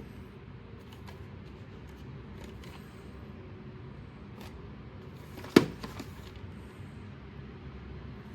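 A VHS tape and its case being handled: a few light clicks and rustles, with one sharp click about five and a half seconds in, over a steady low hum.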